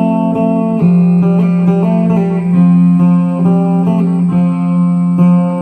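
Background music: plucked acoustic guitar playing changing notes over a held low note.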